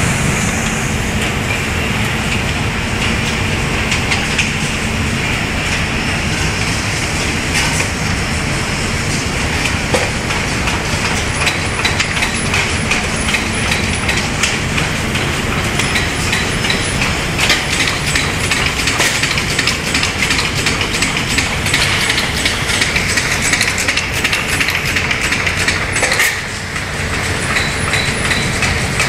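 Loud, steady clattering machine noise of an automated metalworking production cell, where a SCARA robot and conveyors handle metal parts, with scattered sharp clicks and knocks. It drops briefly about 26 seconds in.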